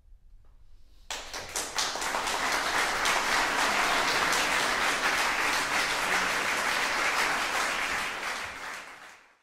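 Audience applause, breaking out about a second in as dense, steady clapping and fading away near the end.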